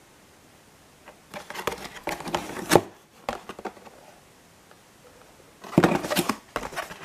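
Plastic toy-car packaging, a clear blister card and a plastic bag, crinkling and crackling as it is handled, in two bursts: one about a second in, the other near the end.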